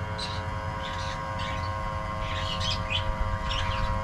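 Small 12 V electric gear motor of an automatic chicken-coop door running with a steady hum as it winds the door down. Small birds chirp repeatedly over it.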